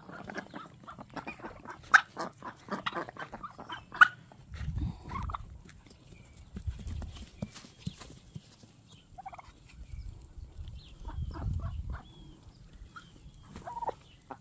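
Strutting tom turkey spitting and drumming: a sharp spit about four seconds in, then deep low drumming hums, three times. A run of quick ticks comes before it.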